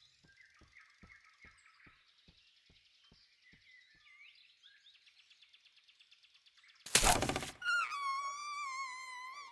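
Faint forest ambience of bird chirps and soft ticks, then about seven seconds in a sudden loud hit lasting under a second. After the hit a held, wavering note like a bowed string with vibrato starts up and carries on.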